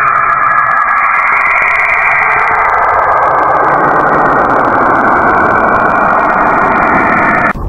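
Spacecraft radio and plasma-wave signals from a planet converted to audio: a loud, steady, dense rushing noise. It cuts off suddenly near the end and a lower, quieter sound begins.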